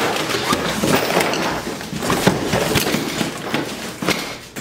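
A large cardboard box being handled and slid across a wooden workbench top, with rustling, scraping and repeated knocks.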